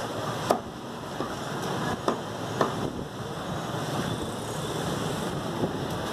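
A few sharp knocks of a butcher's cleaver chopping mutton on a wooden chopping block, over a steady background hiss.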